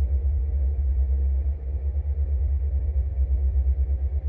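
Dark ambient music: a deep, low drone that wavers rapidly in loudness, with only a faint haze above it.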